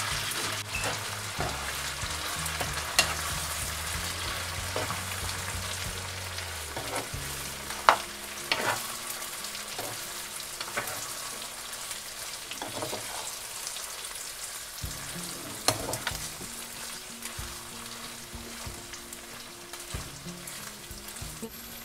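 Chunks of cooked beef sizzling and frying in hot mustard oil with browned onions in a frying pan, while a utensil stirs them. A few sharp knocks of the utensil against the pan stand out, the loudest about eight seconds in. This is the bagar stage of kala vuna, where the meat is fried in the onion-and-oil tempering to darken it.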